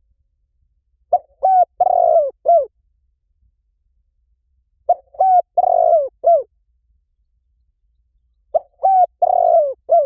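Spotted dove cooing: three calls, each a short run of four or five coos, spaced about three and a half seconds apart.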